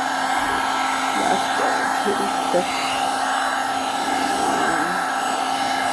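Hot-air tool blowing steadily, a constant whoosh with a steady hum, heating a phone so the glue under its screen softens.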